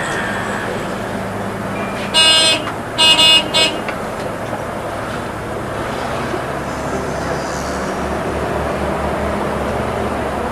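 A vehicle horn toots three times about two seconds in: two longer blasts and a short one. Under it is the steady running noise of a Volvo 8400 low-floor city bus, heard from inside the cab, along with the air-conditioning blower.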